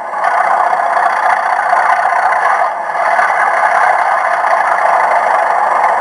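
Hornby OO Class 37 TTS sound decoder playing the diesel engine under 'thrash' through the model's small onboard speaker, running hard with the locomotive standing still. The sound dips briefly a little under three seconds in.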